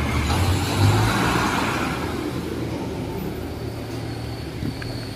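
City bus engine running close by as the bus drives past, over general street traffic. A thin, high, steady whine comes in about three and a half seconds in.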